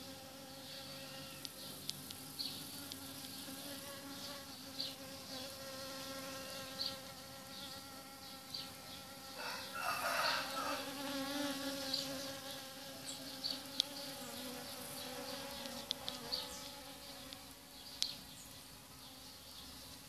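Bees buzzing steadily as they forage among a flower's stamens, with a louder, closer buzz about ten seconds in.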